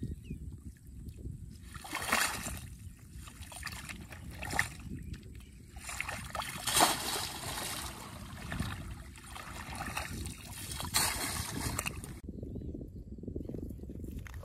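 A hand net being swept and dragged through shallow muddy water, making repeated splashing and sloshing every second or two, loudest about seven seconds in.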